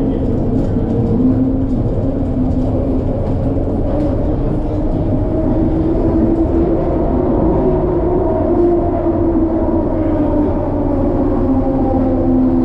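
Detroit People Mover car running along its elevated track, heard from inside the cabin: a steady low rumble with a hum from its linear-induction-motor drive that drifts slightly in pitch.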